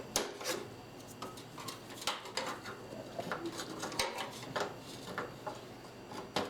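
Irregular light clicks, taps and rubbing of computer parts being handled and fitted into a desktop case.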